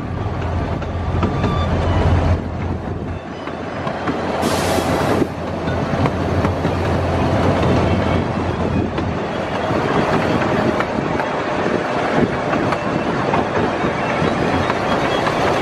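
Miniature park train rolling along its narrow-gauge track: a steady rumble with the wheels clicking over the rail joints. A brief hiss comes about four and a half seconds in.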